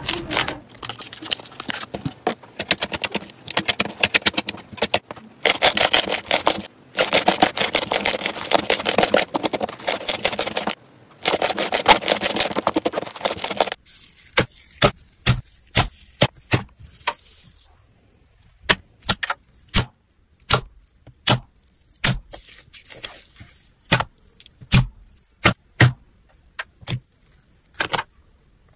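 Hands squeezing and kneading a foam-bead slime (floam), giving a dense run of crunchy crackling clicks. About halfway through, this gives way to a softer slime being pressed in a plastic tub, making separate sharp pops and clicks a few times a second.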